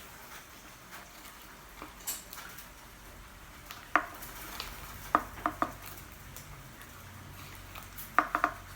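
A spoon stirring slime in a pot, knocking against the pot with scattered sharp clicks, some coming in quick runs of three.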